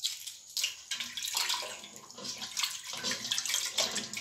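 Water splashing and sloshing in a stainless steel bowl as hands swish a peeled egg through it, a few light splashes at first, then dense, irregular splashing from about a second in.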